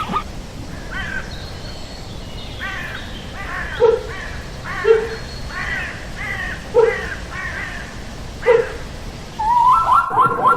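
Animal call sound effect: a run of short, repeated arched calls, about one every half second to second, with a few deeper short notes among them; near the end a quicker, busier chatter begins.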